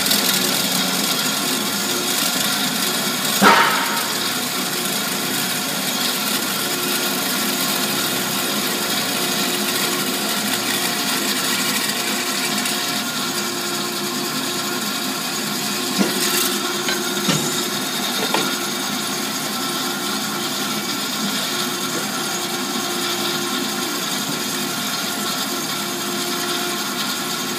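1997 AMADA HA250W automatic horizontal band saw running steadily, its blade cutting through bar stock on hydraulic feed without coolant. A loud clunk comes about three and a half seconds in, and there are a few lighter knocks about halfway through.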